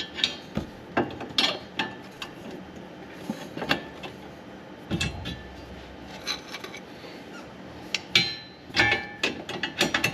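Irregular metallic clicks and clinks from hand work on the skid-plate bolts with tools, with a duller scrape or knock about halfway through.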